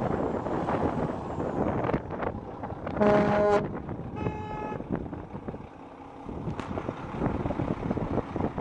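A semi truck's Mack E7 12.0-litre diesel engine running with an uneven rumble. About three seconds in a horn toots for about half a second, the loudest sound, and a fainter, higher tone sounds briefly a second later.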